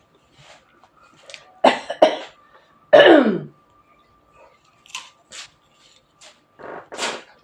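A person coughing in short harsh bursts, the loudest coming about three seconds in, with a drawn-out cough sliding down in pitch; more coughs and throat-clearing follow near the end.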